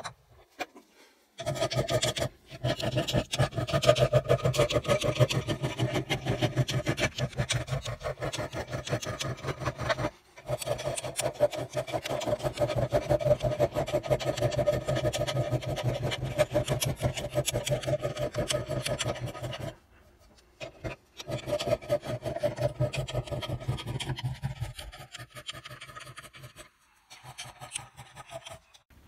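Hand file scraping back and forth across the rusty cast-metal part of an old vice clamped in a bench vice, in quick repeated strokes. The strokes stop briefly a few times.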